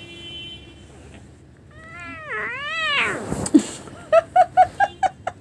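Domestic cat screeching in a long yowl that rises and falls in pitch several times, about two seconds in. A quick string of short sounds, about five a second, follows near the end.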